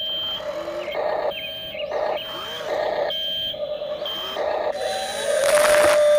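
Radio-controlled model excavator running: a steady electric motor whine with short high beeps about once a second, and whirring bursts as its motors drive the arm and tracks, loudest near the end.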